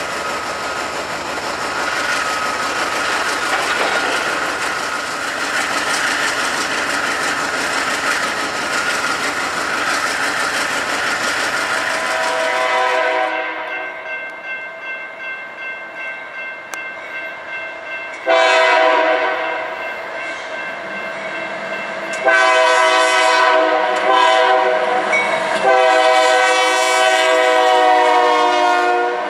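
A freight train rolls past with a steady rumble of wheels and locomotives. Then a Union Pacific diesel locomotive sounds its multi-chime air horn, faint at first and then in loud blasts, two of them long near the end, as its autorack freight passes.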